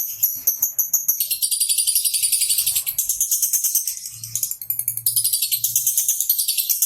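Lovebird singing a long, unbroken high-pitched chatter of very rapid chirps (the 'ngekek' trill), easing briefly a little after four seconds before running on.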